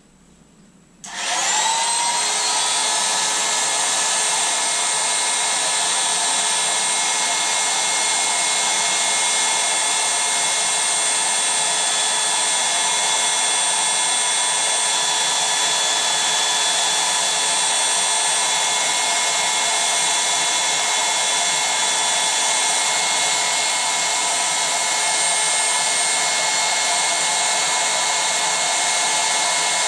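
Electric air pump switched on about a second in, its whine rising briefly as it spins up, then running steadily with a rush of air as it inflates an inflatable.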